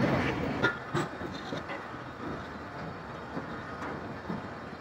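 Passenger train rumbling along with a few clanks, heard from the guard's van door. About a second in, this drops to a quieter, steady rumble with scattered small clicks as the train stands or creeps at a platform.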